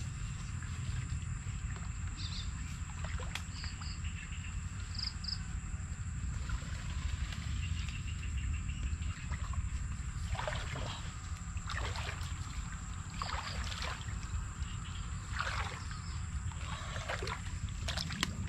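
Water splashing and sloshing in a shallow flooded pond as a woven bamboo fishing basket is pushed and scooped through it, in a run of irregular splashes through the second half. Underneath are a steady low rumble and a faint high whine.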